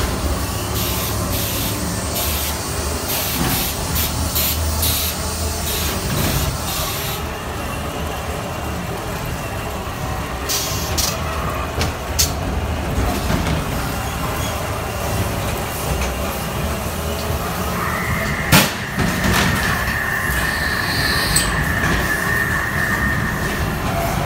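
Dark-ride car rolling along its track with a steady low rumble, under the ride's sound effects: a run of short sharp noises in the first seven seconds, a sharp bang about eighteen seconds in, then a high steady tone for about five seconds.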